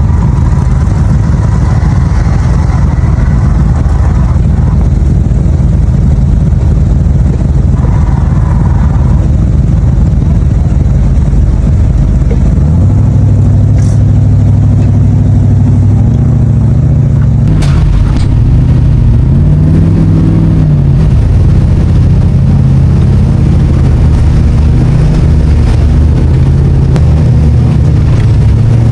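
Jeep Wrangler TJ engine running steadily under load while crawling a trail. It grows heavier about halfway through, then revs up and falls back a few times.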